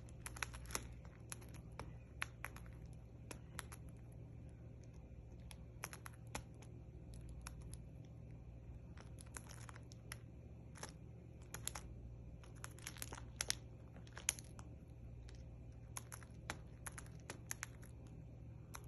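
Cockatiel eating, its beak cracking and husking seeds: irregular small sharp clicks and crunches, sometimes in quick clusters.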